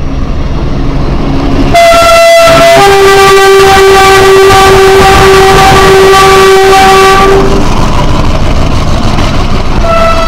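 A loud vehicle air horn blows. A higher note sounds for about a second, then a long lower note holds for about five seconds, and a short blast comes again near the end, all over a steady low rumble.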